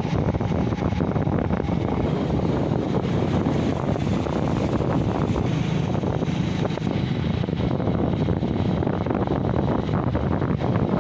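Wind blowing across the microphone: a steady, dense low rumble with no distinct strikes or tones.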